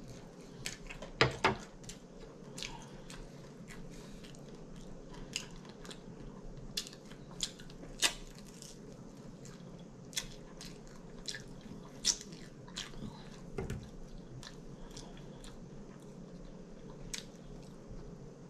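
A person chewing and biting air-fried chicken wings, with irregular sharp crunches and mouth smacks. The loudest come about a second in and about eight seconds in.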